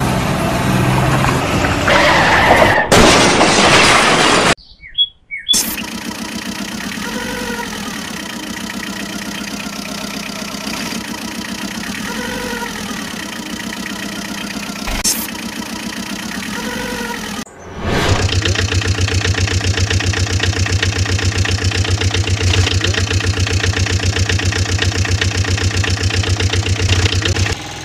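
Truck engine sound effects laid over the footage. The engine runs loud and rough for the first few seconds, cuts out briefly, then runs steadily with a short rising-and-falling squeal about every five seconds. About two-thirds through it changes to a deeper idle with a fast, even chug.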